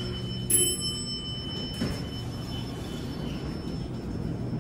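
Fujitec traction elevator's arrival chime dinging once about half a second in and ringing out over a couple of seconds, over a low steady hum, as the car arrives and its doors slide open.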